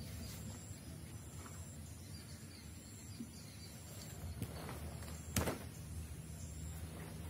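Bare feet and hands striking a concrete patio: a few light taps, then one sharp slap-thud about five seconds in as the karateka drops from the kata's jump to the ground. A steady low outdoor hum lies under it.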